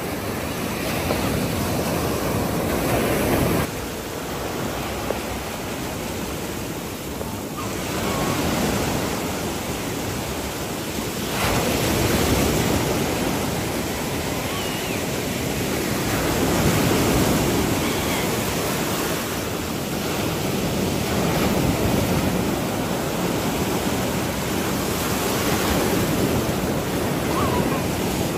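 Sea surf breaking and washing up the shallows of a sandy beach, a loud rushing noise that surges and eases as each wave comes in.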